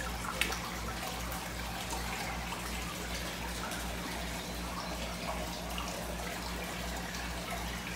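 Steady aquarium water noise from an air stone bubbling, over a low steady hum.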